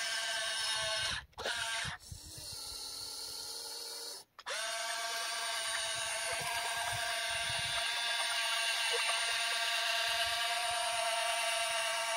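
RC model excavator's electric motors and gearboxes whining steadily as it tracks and swings. The whine stops briefly about a second in and again about four seconds in. Between the two stops it runs quieter and lower.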